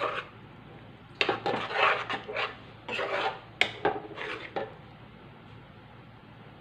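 Steel ladle scraping and clinking against a stainless steel pan while stirring thick dal. A short scrape at the start is followed by a run of scrapes and clinks lasting about three and a half seconds, with one sharper clink partway through.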